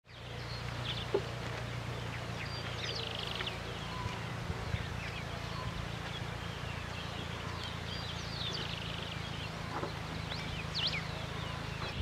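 Wild birds calling: scattered short whistles and chirps, with a couple of quick trills, over a steady low background hum.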